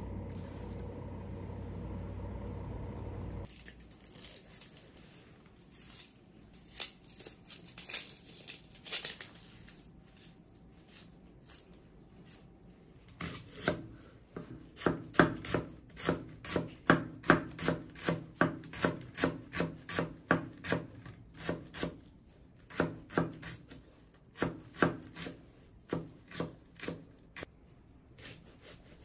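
Chef's knife slicing a red onion on a plastic cutting board: sharp knocks of the blade hitting the board, sparse at first, then a quick run of about two or three a second in the middle. A steady hum fills the first few seconds before the cutting starts.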